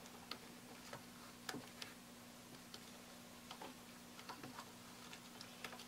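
Scattered light ticks and taps of stirring utensils against small bowls as slime is mixed, at irregular intervals, over a faint steady low hum.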